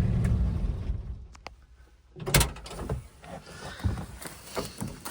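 A small engine running low fades out within the first second. About two seconds in comes a single heavy thump, followed by a few lighter knocks.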